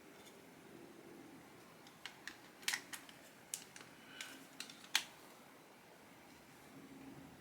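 Rugged plastic phone case clicking and snapping as it is fitted onto a Samsung Galaxy S23 Ultra: a quick run of about eight sharp clicks over three seconds, starting about two seconds in, the last the loudest.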